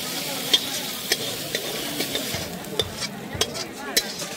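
Spoon scraping and knocking against a cooking pan as pork curry is scooped out onto a plate, a string of sharp clicks that come faster in the second half. Underneath is a faint sizzle from the hot curry, which dies away about halfway through.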